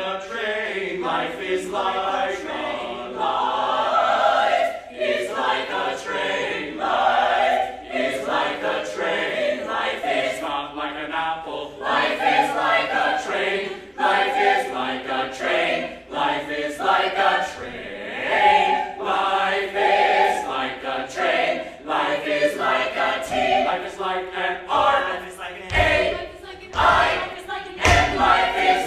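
A musical-theatre cast singing an ensemble number, men's and women's voices together like a choir. A few low thumps come near the end.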